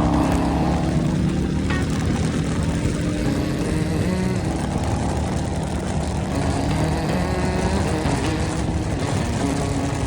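Harley-Davidson Road Glide's V-twin engine running steadily under way, with heavy wind rushing over the helmet microphone.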